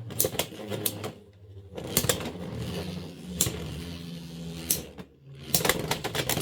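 Beyblade X spinning tops whirring and clashing in a plastic stadium: a steady hum broken by sharp clacks of hits. The sound drops away twice for a moment.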